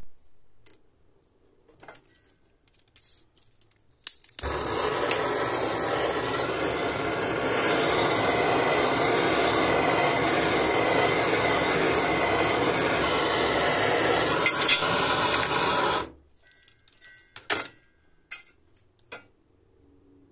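Hose-fed handheld gas torch lit about four seconds in, then burning with a steady rushing hiss for about twelve seconds while it heats twisted copper wire to anneal it, and shut off abruptly.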